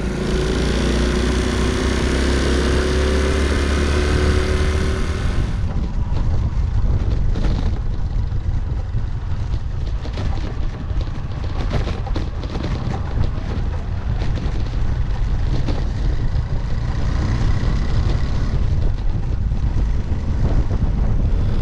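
Small single-cylinder motorcycle engine of a Honda C90 step-through running under way, its pitch gliding in the first few seconds. About five seconds in the sound changes abruptly and wind buffeting on the microphone takes over.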